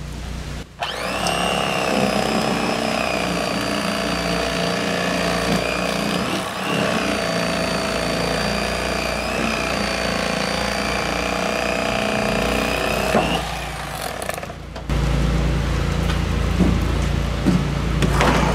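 Electric fillet knife running steadily as it cuts a fillet off a bowfin, a motor whine with a slight waver in pitch; it stops about 13 seconds in.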